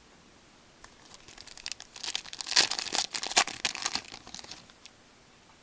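Wrapper of a hockey trading card pack crinkling and tearing as it is ripped open, a dense crackle lasting a few seconds and loudest in the middle.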